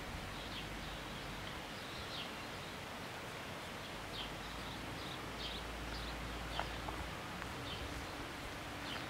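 Outdoor ambience of small birds giving scattered short chirps over a steady hiss of wind in the leaves, with a low rumble swelling for a couple of seconds in the middle.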